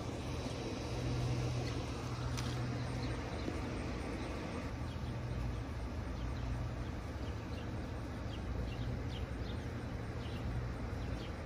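Outdoor ambience: a steady low hum like distant traffic, with small birds giving short high chirps, several of them in the second half.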